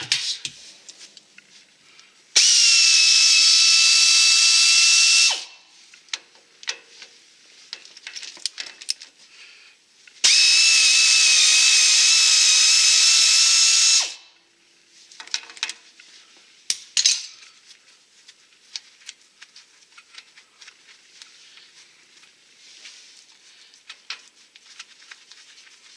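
Pneumatic air ratchet running in two bursts of about three and four seconds, each a steady high whine, as it spins nuts off the front brake hardware. Light clinks of tools and parts come between the bursts, and there is a sharp metallic clank about 17 seconds in.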